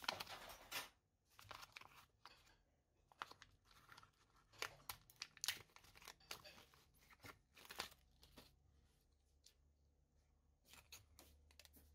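Faint plastic packaging crinkling and tearing as a sealed plastic bag of circuit boards is torn open by hand, in short irregular crackles.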